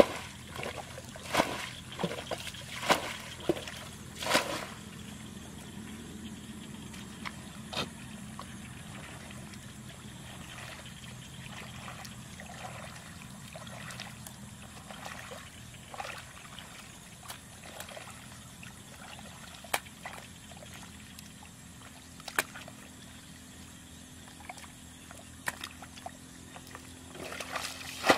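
Muddy ditch water scooped with a plastic bucket and thrown out in splashes about every second and a half for the first few seconds, as the ditch is bailed out to catch the fish in it. After that, quieter trickling and sloshing of water with a few small splashes.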